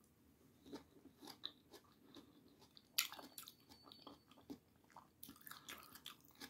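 A person chewing a mouthful of food close to the microphone: faint, irregular mouth clicks, with a sharper one about halfway through.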